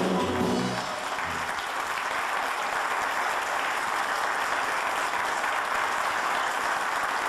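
Theatre audience applauding as the stage goes dark. The last of the song's music dies away in the first second, then the clapping carries on steadily.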